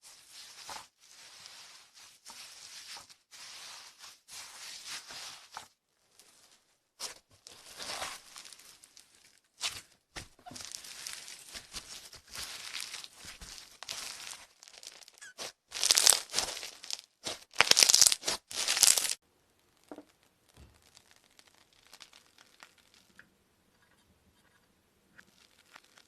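Slime being stretched, pulled and pressed by hands, giving a run of crackly, tearing sounds, loudest a little past the middle and then fading to faint pokes.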